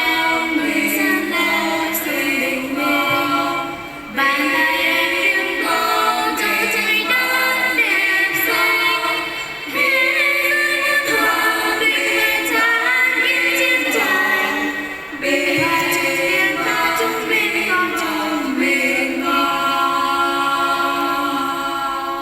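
A choir singing in Vietnamese, with short breaths between phrases about four, ten and fifteen seconds in. It ends on a long held chord.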